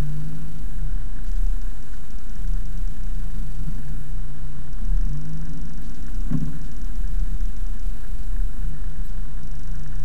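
Mercedes-Benz C-Class coupe heard from inside the cabin while driving: a steady low road rumble under an engine drone that drops away and picks up again a few times, with short pitch glides, as the driver works the manual gearbox. A brief knock about six seconds in.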